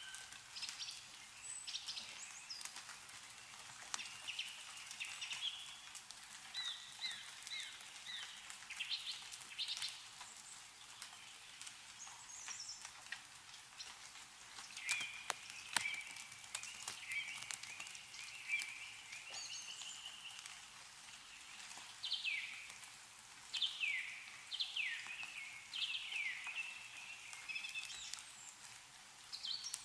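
Songbirds singing and calling: chirps and runs of quick downward-slurred notes, several in a row near the end. Irregular drips of meltwater fall from snow-laden trees.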